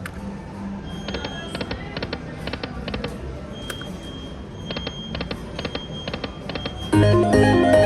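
Lightning Link Moon Race slot machine spinning: runs of quick electronic ticks with a thin held beep as the reels spin and stop, then a loud electronic jingle about seven seconds in.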